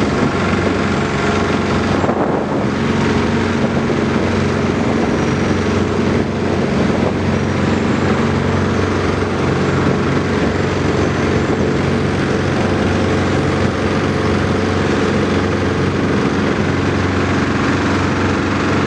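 Engine of road-works machinery running steadily at a constant pitch.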